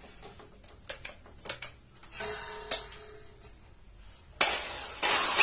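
A few light clicks and knocks as a Black & Decker drill is handled, then about four seconds in its motor starts and runs free with no load in normal (non-hammer) mode. It speeds up a moment later and stays loud and steady.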